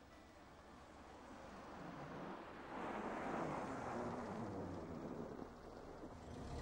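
A vehicle passing by on the road: a faint rush of noise that swells to a peak about three seconds in and then fades.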